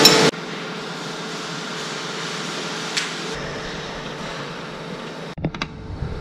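Steady workshop background noise with a faint hum. Near the end come a few sharp metallic clicks as a spanner works a roof-rack lug bolt.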